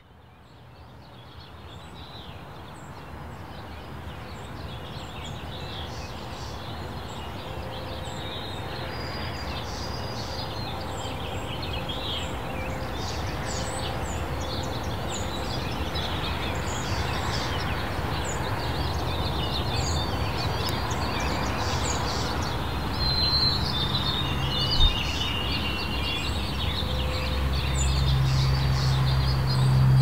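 Many songbirds chirping and singing at once over a steady rumble of distant road traffic, fading in over the first few seconds. A single sharp click comes about four-fifths through, and the traffic rumble grows louder near the end.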